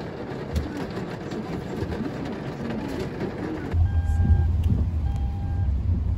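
Steady rain falling. About four seconds in, this gives way to the low rumble of a car interior in the rain, with a beeping tone that sounds on and off several times.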